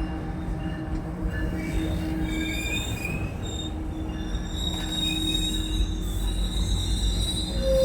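Metrolink commuter train pulling in to stop at the platform, its wheels squealing in several high, wavering tones over a low rumble that grows louder near the end.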